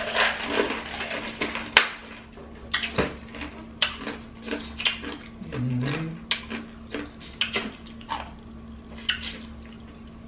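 Eating a seafood boil: sharp, irregular clicks and cracks of crab and crawfish shells being broken open and picked apart, with wet smacking and chewing. A brief low hum about halfway through.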